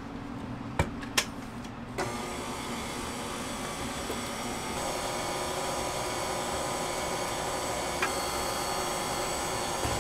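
Two sharp clicks, then a KitchenAid stand mixer switches on about two seconds in and runs steadily with its wire whisk beating a batter, its motor hum getting a little louder about five seconds in.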